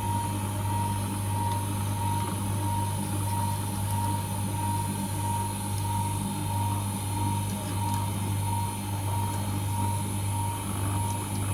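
A steady electric machine hum: a low drone with a high steady tone over it that pulses gently about twice a second.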